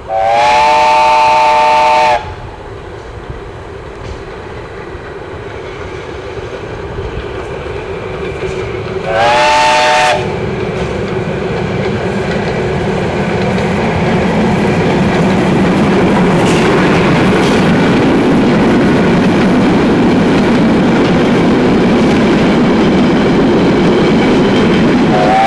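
Steam whistle of Dutch steam tram locomotive No. 26 blowing a two-second blast at the start and a shorter one about nine seconds in, with a third starting at the very end. Between the blasts the tram train's running noise, wheels on the rails, grows steadily louder as it draws near.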